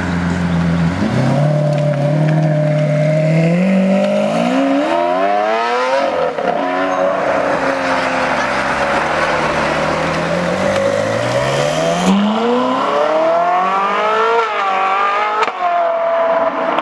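Lamborghini Aventador's V12 pulling away and accelerating hard. The revs climb steeply twice, dropping at a gear change in between, and the exhaust is loud throughout.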